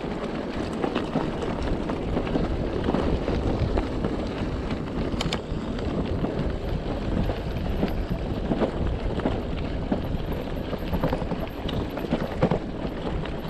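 Riding noise from an e-bike on a rough track: wind buffeting the microphone over the rolling tyres, with scattered knocks and rattles from the bike over bumps.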